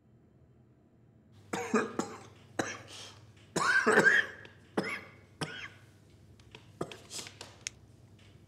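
A man's coughing fit: a run of harsh coughs, the strongest about four seconds in, tailing off into a few weaker coughs.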